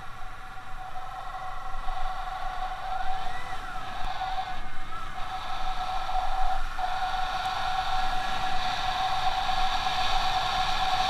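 Yamaha Byson motorcycle's single-cylinder engine and exhaust running at a steady cruising speed, heard from on board. The engine note holds a steady pitch and dips briefly about six and a half seconds in.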